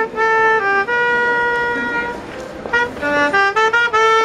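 Clarinet playing a solo street tune: a few notes, a long held note, a short break a little after two seconds in, then a run of quicker notes.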